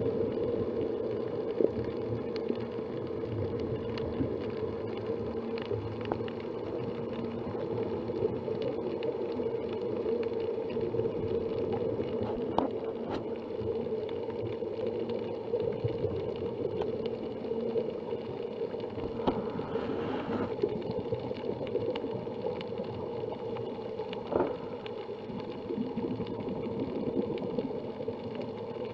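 Underwater ambience through an action camera's waterproof housing: a steady muffled hum with scattered sharp clicks, and a brief hiss about twenty seconds in.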